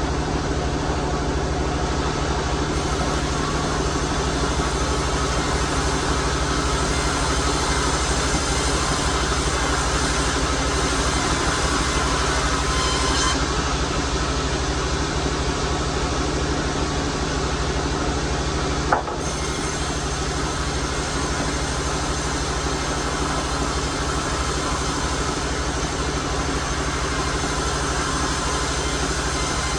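Sawmill machinery running steadily: a low motor hum under a continuous hiss of sawing. A single sharp click about two-thirds of the way through.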